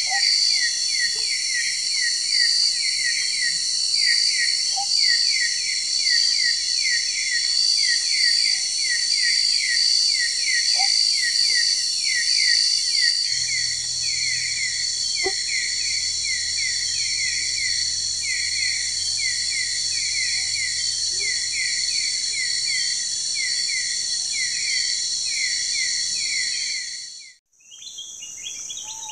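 Dense night chorus of insects in tropical riverside forest: a steady shrill high buzzing, over which one insect repeats a short falling chirp about twice a second. Near the end it cuts out for a moment and a thinner chorus of insects with bird chirps takes over.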